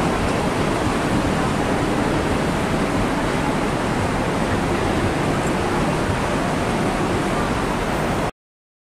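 Steady wind rushing and buffeting across the microphone on an open ship deck, with a rumbling low end; it cuts off suddenly about eight seconds in.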